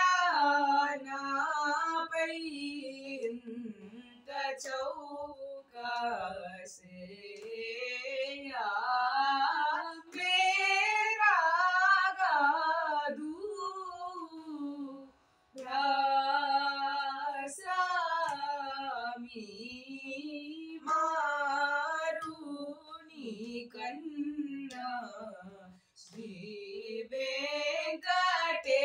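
A boy and a girl singing a Carnatic varnam in raga Todi together, their phrases full of sliding, ornamented notes. Two brief breaks fall between phrases, one about halfway and one near the end.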